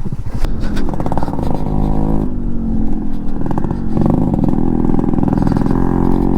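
Yamaha RX 135 two-stroke single-cylinder engine, on its stock exhaust, running and being revved, its pitch rising and falling a few times and then holding fairly steady.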